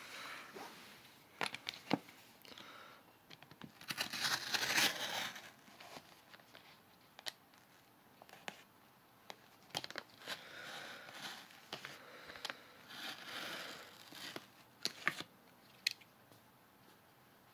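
Plastic mailing envelope crinkling as it is handled and cut open with a box cutter, in several bursts of rustling with scattered sharp clicks; the longest burst comes about four seconds in.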